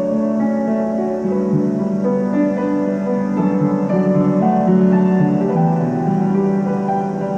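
Instrumental piano music: held notes that change every half second to a second, over steady lower notes.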